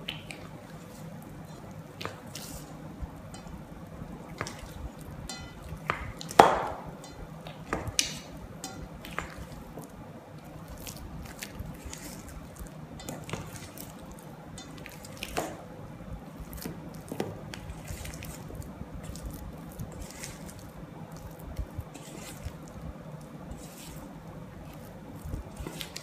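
A wooden spatula folding thick, wet chocolate cookie dough in a stainless steel bowl: soft squelches and scrapes with scattered light taps. The loudest is a single clink against the bowl that rings briefly, about six seconds in.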